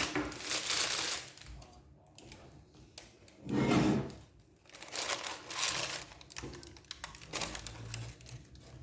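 Crinkling and rustling handling noises in several short spells, with a heavier dull knock about three and a half seconds in.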